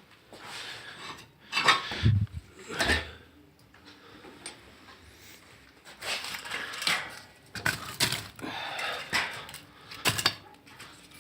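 Steel fireplace-stove door being handled: irregular metal clanks, knocks and scrapes.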